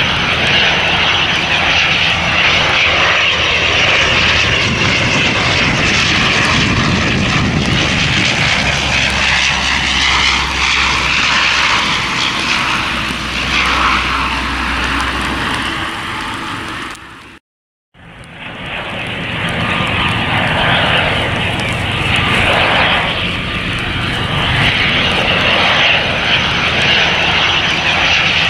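De Havilland Dash 8 turboprop engines and propellers in flight, a steady drone with a strong hiss. A little past halfway the sound cuts out for about half a second, then the drone of a second approaching Dash 8 resumes.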